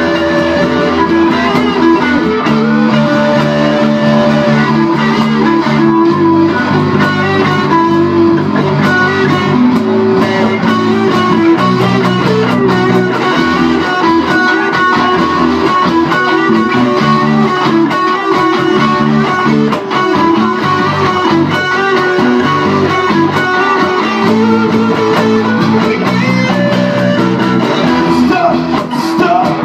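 Live band playing a loud instrumental passage led by guitar, with bass underneath; the chords are held for a couple of seconds at a time before changing.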